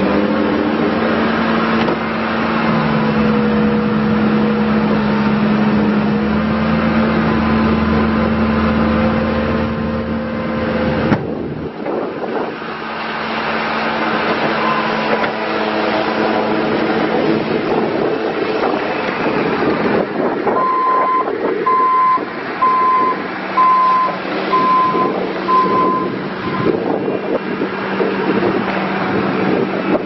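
2013 Bobcat T630 compact track loader's diesel engine running steadily under hydraulic work, its note dropping suddenly about eleven seconds in. From about twenty seconds in, the loader's backup alarm beeps about six times, roughly once a second, as it reverses.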